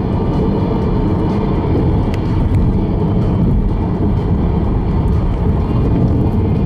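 Steady low rumble of a moving car's road and engine noise, heard from inside the cabin, with a couple of faint ticks about two seconds in.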